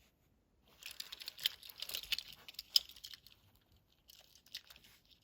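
Handling of packaged Hot Wheels die-cast cars: crinkly plastic blister-pack rustling with small sharp clicks, busiest in the first three seconds, then a briefer bout of rustling near the end.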